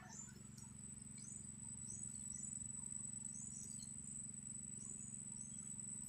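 Faint outdoor insect sound: a steady high-pitched trill, typical of a cricket, with short high chirps scattered through it over a low steady hum.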